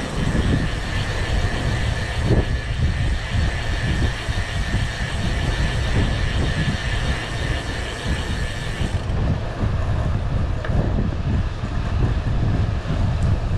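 Wind buffeting the microphone over the rolling rumble of a gravel bike's tyres on a concrete path. A thin high hum runs under it and stops about two-thirds of the way through.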